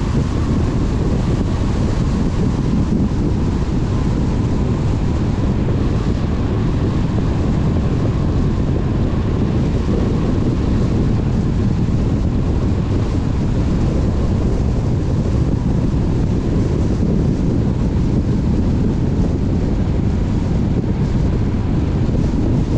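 Steady low rumble of a car on the move, tyre and wind noise, with a faint steady whine above it and no changes.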